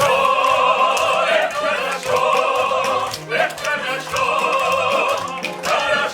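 A song sung with musical accompaniment: three long held notes with vibrato, each about a second and a half, with short sung phrases between them.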